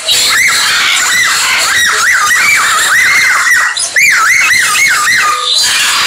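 Birds calling: a rapid series of whistled notes that rise and fall, about three a second through the middle of the clip, over a busy background of chirping birds.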